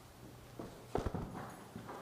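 A quick cluster of four or five sharp, hollow knocks about a second in, with a few fainter clacks after.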